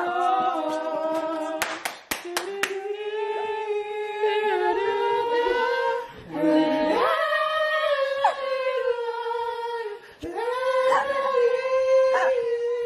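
Singing: a voice holding long notes that slide between pitches, with a steep rise in pitch about halfway through. A few sharp clicks sound about two seconds in.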